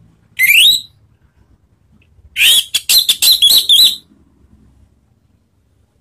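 Orange-headed thrush singing: a short rising whistle, then about two seconds in a loud, rapid run of notes lasting about a second and a half.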